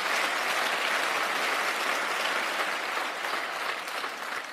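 Audience applauding, a steady wash of clapping that thins and dies away near the end.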